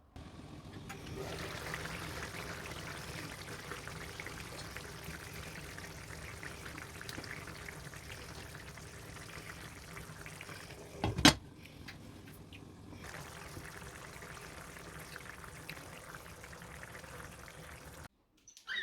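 Steady watery noise of liquid in the kitchen, with one sharp knock about eleven seconds in.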